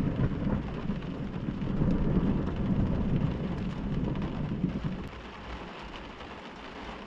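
Thunder rumbling, building over the first two seconds and fading after about five, with heavy rain pattering throughout.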